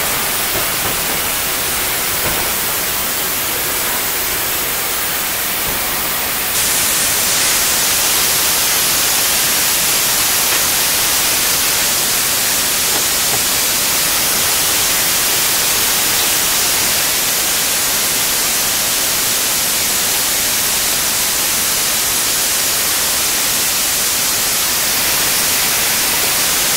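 YG-class metre-gauge steam locomotive blowing off steam and water onto the track ballast, a loud, steady hiss that grows louder and brighter about six and a half seconds in.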